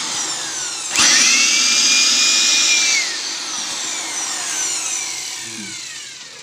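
INGCO AB4018 400 W electric blower's motor switched on about a second in, its whine rising to a steady pitch. It runs for about two seconds, then is switched off and winds down with a falling whine that fades away.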